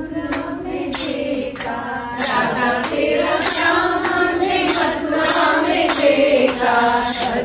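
A group of women singing a Hindu devotional bhajan together, with hand claps keeping a steady beat roughly once a second.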